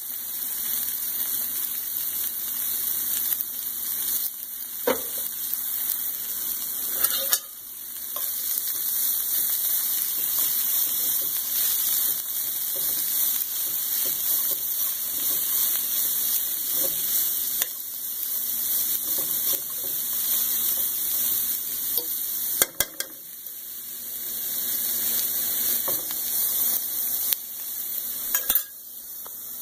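Shredded broccoli slaw sizzling steadily in a hot frying pan as it is stirred and tossed with a fork, with a few sharp clicks of metal against the pan.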